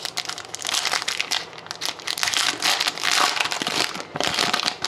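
Plastic wrapper of a trading card pack being torn open and crinkled, in a run of short crackling bursts.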